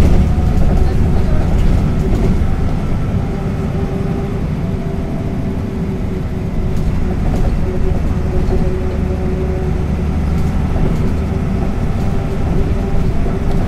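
A 1993 MAN NL 202 city bus's diesel engine and Renk automatic gearbox running while the bus drives, recorded on board: a heavy, continuous low rumble with a steady whine on top. It eases slightly about four seconds in and picks up again after about seven seconds.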